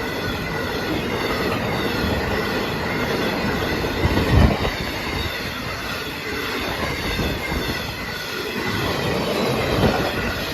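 Freight train hauled by a Class 66 diesel rolling past at close range, its wheels knocking steadily over the rail joints and crossing, with a thin wheel squeal. There is a heavier thump about four seconds in.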